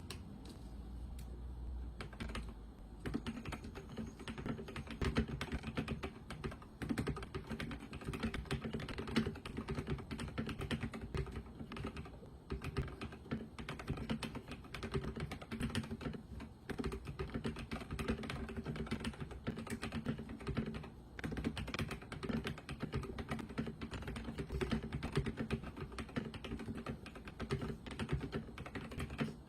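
Continuous fast typing on a SPACE65 R2 mechanical keyboard with an FR4 plate and lubed Ca Phe Sua Da linear switches (nylon stems, polycarbonate housings, 63.5g double springs). The typing is sparser at first and becomes dense about three seconds in.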